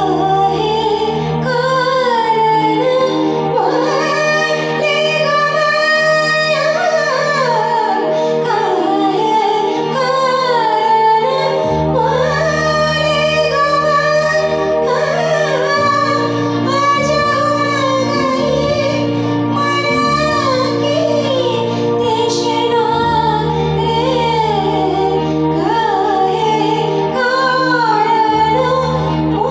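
A woman singing a bhajan, a Hindu devotional song, into a microphone with gliding, ornamented melody lines over instrumental accompaniment. The low bass part of the accompaniment drops out for several seconds in the first half.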